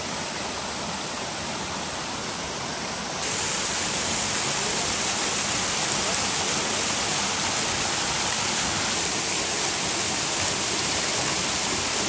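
Waterfall: a steady rush of falling water splashing into a pool, getting a little louder about three seconds in.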